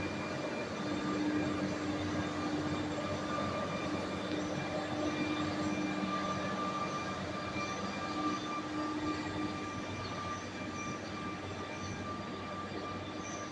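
Steady drone of heavy diesel earthmoving machinery and trucks running, with a constant hum of several engine tones that come and go.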